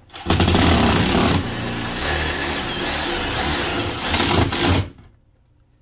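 Cordless drill running under load against a stainless steel wall sheet, fixing a wire mold box bracket in place. It runs steadily for about four and a half seconds, with a few short stop-start pulls near the end, then stops.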